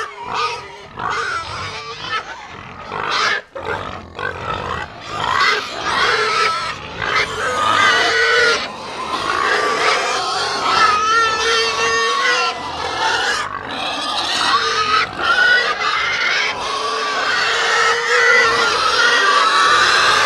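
Rhinoceros calls used as a sound effect: a continuous run of rough animal calls that waver up and down in pitch.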